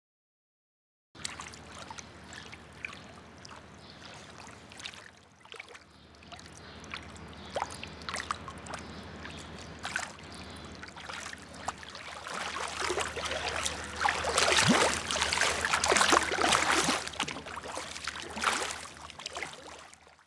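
Trickling, splashing water full of small crackles, over a low steady hum. It starts about a second in, grows louder through the middle to its loudest in the last few seconds, then fades just before the end.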